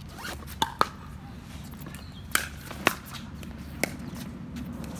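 Pickleball rally: a paddle hitting a hard plastic pickleball with a sharp pop, about five times at uneven intervals, the loudest pairs close together about a second in and between two and three seconds in.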